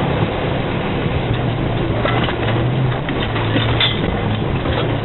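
Vehicle engine running steadily at low revs, with a few faint knocks or rattles about two to four seconds in.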